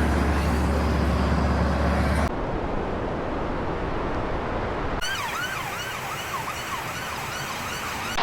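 A steady rushing noise that changes at two cuts, with a deep hum for the first two seconds. About five seconds in, an emergency-vehicle siren starts over the noise, sweeping quickly up and down in a fast yelp several times.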